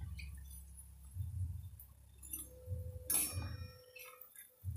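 Steel slotted spoon and wire strainer clinking and knocking against a steel kadai as fried potato pakoras are lifted out of the oil. One sharper clink about three seconds in leaves a short metallic ring.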